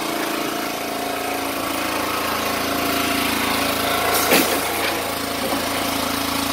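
Portable engine-driven generator running at a steady speed, with one short sharp knock about four seconds in.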